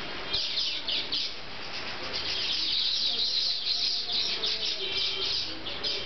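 Baya weavers chattering: a rapid string of short, high chirps that starts about half a second in and grows denser, with hardly a pause between notes.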